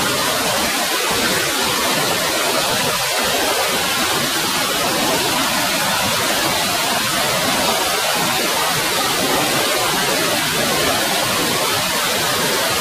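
Stream cascading over boulders into a rock pool: a steady, even rush of falling water.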